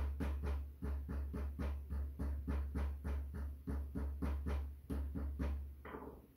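Wooden rolling pin beating pie-crust dough into a round on a wooden butcher-block table: a fast, even run of dull thuds, about four or five a second, stopping near the end.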